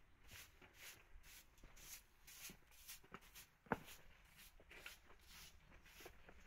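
Faint footsteps scuffing along a path, about three a second, with one sharper knock a little past halfway.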